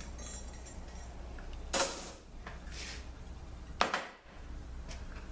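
Small steel transmission parts (washers and bearing) clinking and clattering as they are handled on the workbench, with two louder clinks about two and four seconds in, over a low steady hum.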